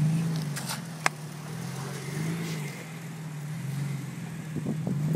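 Toyota FJ Cruiser's 4.0-litre V6 running at low revs off-road, its note swelling and easing a little as it crawls. There is one sharp click about a second in.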